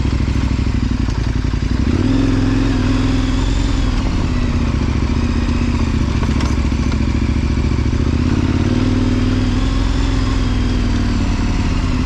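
KTM 1090 Adventure's V-twin engine running as the motorcycle rides along an offroad trail, steady throughout and picking up a little about two seconds in.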